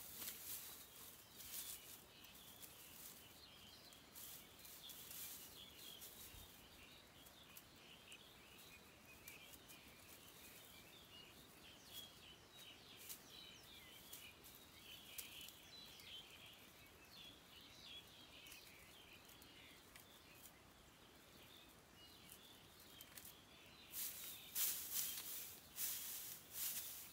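Faint outdoor ambience: a steady high chirping chorus of small creatures, with sharp rustling clicks near the end.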